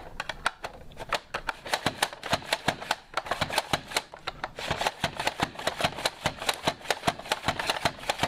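Pampered Chef Rapid Prep Mandoline slicing carrots, its plunger handle pumped quickly so that the blade clacks through them in a rapid, even run of sharp clacks, several a second.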